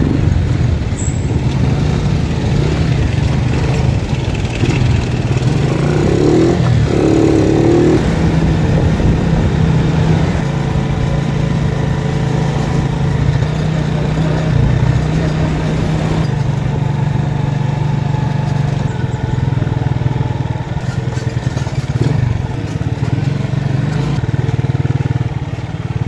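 Motorcycle engine running steadily while riding along a road, heard from on the bike.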